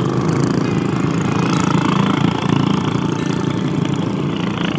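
Minibike's single-cylinder Tillotson 212 four-stroke engine running steadily while riding, heard from on the bike.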